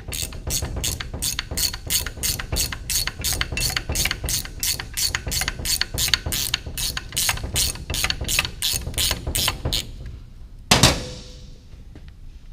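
Hand ratchet clicking steadily, about three to four clicks a second, as a bolt is run out on the transmission case; near the end a single loud metal clank with a brief ring.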